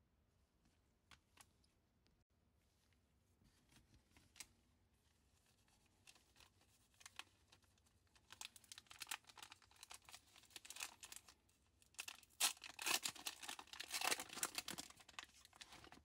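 Foil wrapper of a 1996 Upper Deck basketball card pack crinkling as gloved hands rub it and tear it open. First a few faint taps of cards being handled; the crinkling builds from about halfway through and is loudest near the end as the wrapper is torn.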